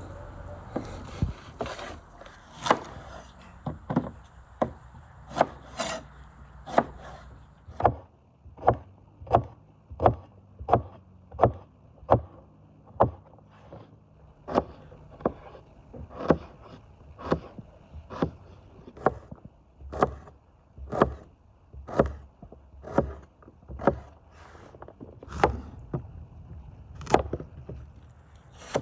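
Chef's knife chopping fruit on a wooden cutting board: a long run of sharp, evenly spaced knocks of the blade on the board, about one and a half a second.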